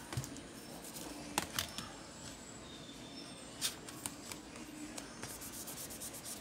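Light clicks, taps and rustling of hands handling an HP EliteBook 840 laptop keyboard, with its plastic backing sheet and flat ribbon cable. There are a few sharp separate clicks, then a quick run of small ticks near the end.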